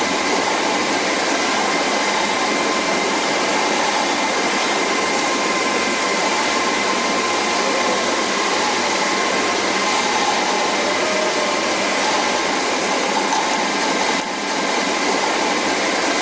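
Steady whirring machinery noise of a factory floor, an even rushing sound with a faint steady hum in it.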